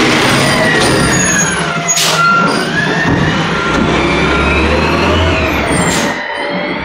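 Automated side-loader garbage truck close by: the diesel engine runs under a hydraulic whine that rises and falls in pitch as the lifting arm works. Two sharp sounds cut through, about two and six seconds in.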